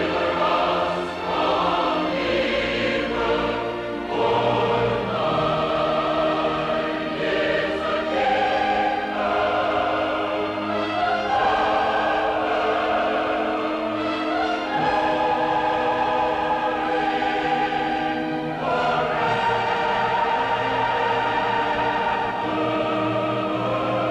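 Choral music: a choir singing long, slowly changing held chords.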